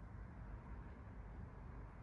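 Faint steady low rumble of background noise, with no distinct events.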